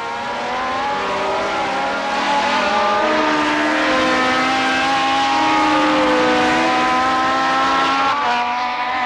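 Flat-twelve engines of 1978 Formula 1 cars, a Ferrari and a Brabham-Alfa Romeo, running at high revs as they race past. The high engine note holds and slides slowly in pitch, then changes about eight seconds in.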